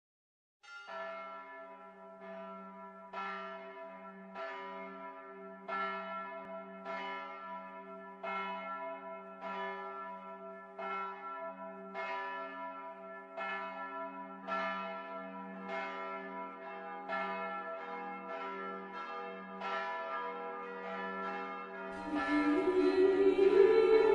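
Church bells being struck over and over at a steady pace, a little faster than once a second, each stroke ringing on into the next. Near the end, louder music comes in over them.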